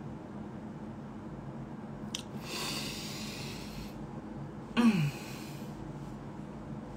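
A man breathing out audibly for a second or so. About five seconds in comes a short vocal sound that falls in pitch, the loudest moment.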